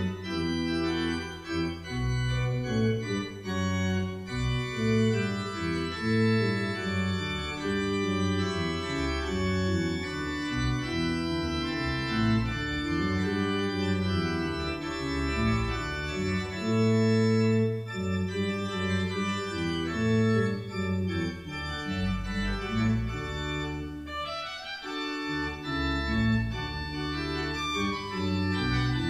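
Pipe organ playing: sustained chords with many overtones over a bass line that moves from note to note.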